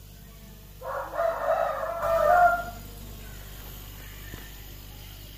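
A rooster crows once, loud, starting about a second in and lasting about two seconds. Under it runs the steady low hum of a refrigerator compressor working as an air compressor, pumping up its tank.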